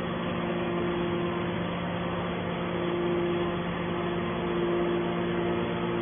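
Hydraulic scrap metal baler's power unit running steadily: a constant motor-and-pump hum with a higher whine that swells and fades several times.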